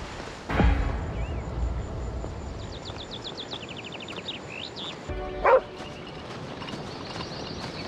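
A dog barking twice: a loud bark about half a second in that drops in pitch, and a short, higher bark about five seconds in.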